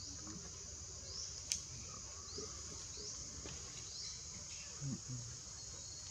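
Steady high-pitched drone of an insect chorus, with several short rising chirps over it and a single sharp click about one and a half seconds in.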